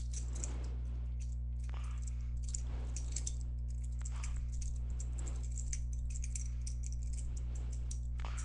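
Butterfly knife being flipped: many light metal clicks and clacks of the handles swinging around the blade, scattered irregularly throughout, over a steady low electrical hum.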